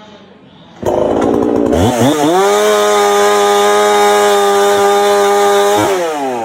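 Chainsaw coming up to full speed, running at a high steady pitch for a few seconds, then dropping off near the end.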